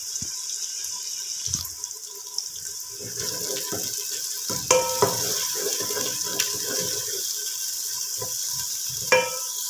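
Green chillies, tomatoes and ginger-garlic paste sizzling with fried onions in hot ghee in an aluminium pot, a steady hiss. From about three seconds in, a spatula stirs and scrapes against the pot in quick irregular strokes.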